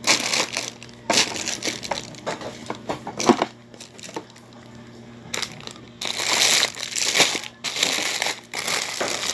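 Plastic grocery packaging crinkling and rustling as it is handled. It comes in several short bursts over the first few seconds, then in a longer stretch from about six seconds in.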